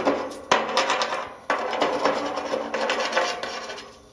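Slag being chipped off fresh welds on steel C-channel with quick, rattling strikes of a chipping hammer and a scraping edge. Runs of strikes start abruptly about half a second and a second and a half in, then fade out near the end.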